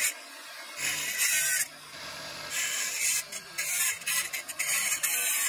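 Onyx marble being ground against a spinning abrasive disc on a motor spindle, a gritty scraping hiss. It comes in bouts of about a second, with short lulls between them.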